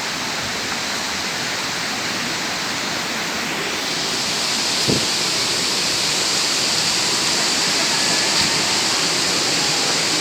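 Steady rush of falling water from a waterfall, growing a little louder and brighter about four seconds in, with one short knock about halfway through.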